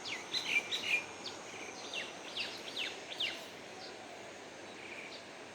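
Small birds chirping in a quick run of short, falling calls that thin out after about three seconds. Underneath is a steady high-pitched hum and an even outdoor hiss.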